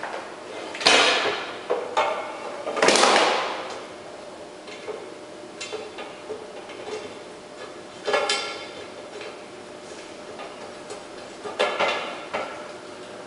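Hard parts knocking and clattering on a tabletop as force gauges and their plastic mounting screws are handled and set down: scattered sharp knocks with a short ring, the loudest about three seconds in, with more around eight and twelve seconds.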